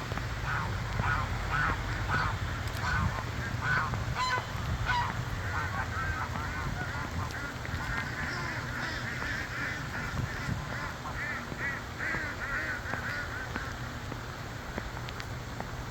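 A flock of ducks quacking, many short calls one after another, busiest in the second half, over a steady low hum.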